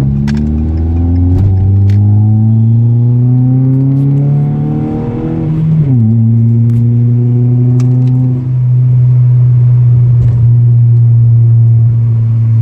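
Car engine accelerating, its pitch rising for about five seconds, then dropping sharply as the transmission shifts up about six seconds in, and running at a steady pitch after that.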